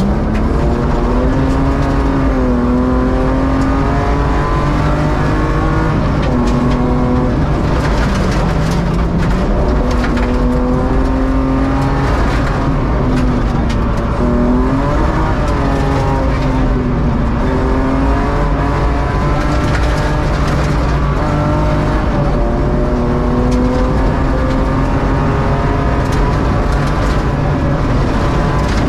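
BMW E36 rally car heard from inside the cabin at full pace on a gravel stage: the engine revs rise and fall again and again through gear changes and braking for corners, over the constant rattle of gravel striking the car.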